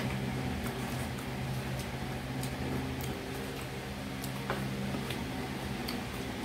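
Steady hum of a room fan's motor, with a few faint clicks and rustles from small plastic toy parts being handled.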